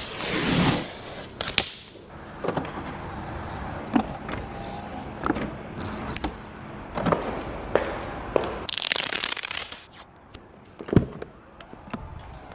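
Handling noises: scattered sharp clicks and taps over a low rustle, with a louder crinkly rustle about nine seconds in and a strong click at about eleven seconds.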